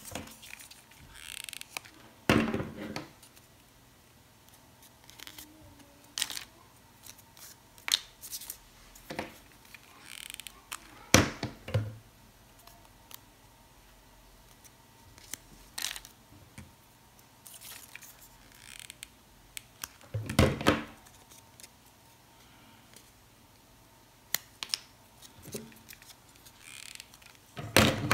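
Craft paper rustling and crinkling as paper-flower petals are handled and pinched into shape, with scattered light clicks and four louder knocks, about nine seconds apart.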